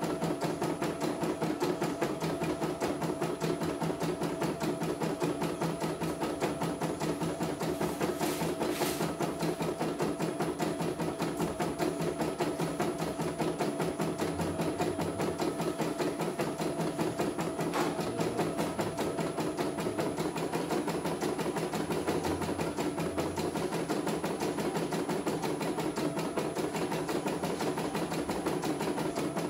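CNY E900 portable computerized embroidery machine stitching a design, its needle running in a rapid, even rhythm.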